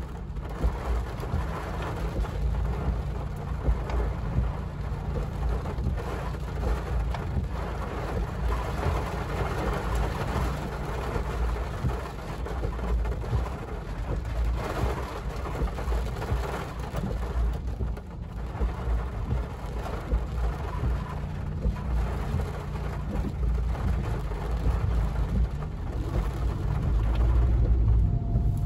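Rain falling on a car's roof and windshield, heard from inside the cabin as a dense crackle over a steady low rumble, growing louder near the end.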